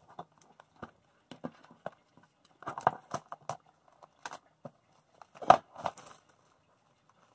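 Plastic shrink-wrap being picked at and peeled off a DVD case: scattered crackles and clicks, with louder bursts about three and five and a half seconds in.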